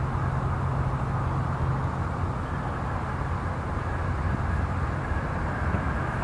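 Steady rumble of a distant jet airliner's engines as it touches down and rolls out on the runway.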